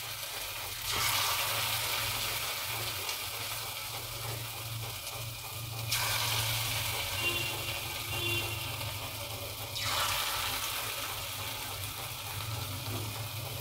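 Pakoda batter deep-frying in hot peanut oil: a steady sizzle that swells about a second in, again around six seconds and near ten seconds as more batter is dropped in by hand.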